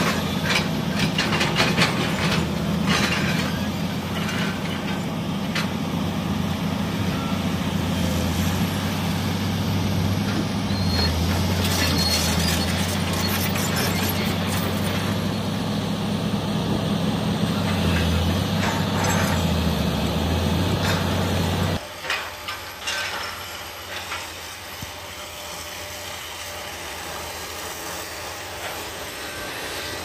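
Komatsu PC200 hydraulic excavator's diesel engine running under load, its pitch dipping and rising as the hydraulics work, with clanks and knocks from the machine. About 22 seconds in the sound drops suddenly to a quieter, steady engine hum.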